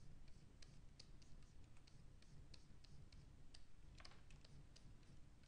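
Faint irregular clicking, a few clicks a second, from a computer keyboard and pen tablet in use during digital sculpting, over a low steady hum.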